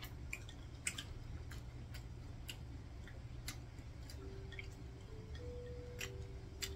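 Light, irregular clicks of metal chopsticks against dishes and the tabletop grill grate during a meal, about a dozen over a few seconds, over a low steady hum.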